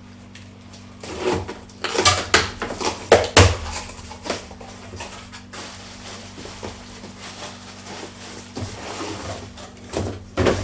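A cardboard box being opened and a plastic swimming duck decoy unpacked from it: a cluster of knocks and scrapes about two to three and a half seconds in, quieter rustling of packaging after, and another knock near the end.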